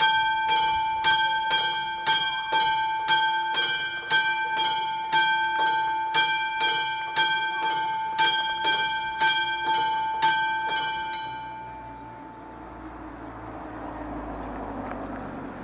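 Classic electromechanical warning bell of an AŽD 71 level-crossing signal ringing at about two strikes a second, sounding the warning that a train is coming; it stops about eleven seconds in and its tone rings out. A broad rushing noise swells and fades near the end.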